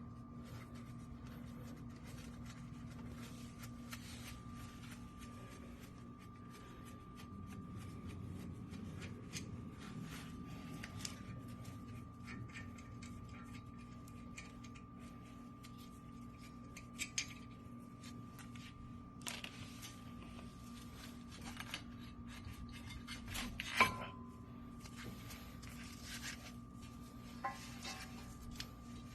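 Faint metallic clinks and scrapes of hand tools and front brake caliper parts being handled, metal on metal, with one sharper clank near the end. A steady hum runs underneath.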